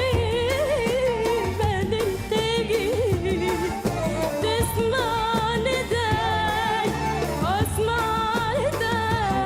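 A woman singing an Arabic song live, with ornamented, wavering melodic runs, over band accompaniment with a steady rhythmic bass. About seven and a half seconds in, the voice makes a quick upward slide.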